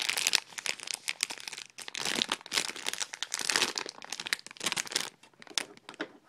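Clear plastic packaging crinkling as it is handled close to the microphone, in irregular bursts that die away near the end.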